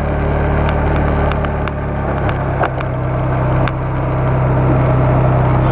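Small off-road vehicle's engine running steadily as it drives along a snowy track, with scattered sharp clicks and rattles over the engine hum.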